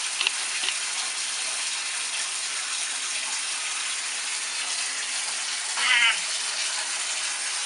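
Water running steadily from a bath tap into a bathtub. About six seconds in comes one short high cry.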